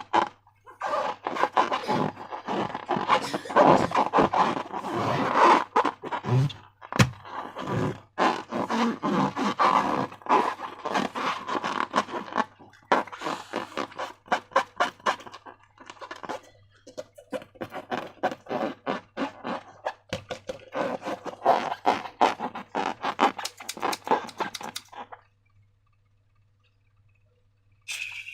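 Sticky slime being squeezed and worked by hand, a dense run of wet crackling and squelching that stops about 25 seconds in.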